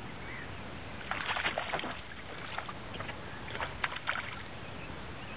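A hooked brown trout splashing at the surface, in a burst of splashes about a second in and a few sharper ones around three to four seconds in, over a steady hiss of wind and lapping water.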